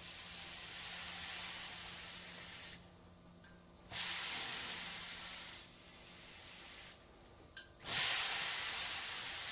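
Water sizzling and hissing as it is splashed onto a frying pan heated to several hundred degrees Celsius. Three splashes are heard: each hiss starts suddenly and fades over a couple of seconds, the last one loudest.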